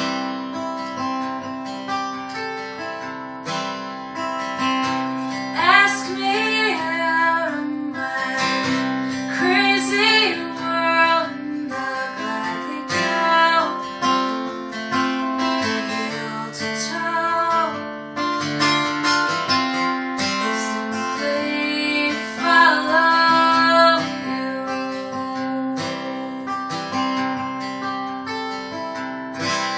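Acoustic guitar strummed and picked through a slow folk song, with a woman singing a few long phrases in places.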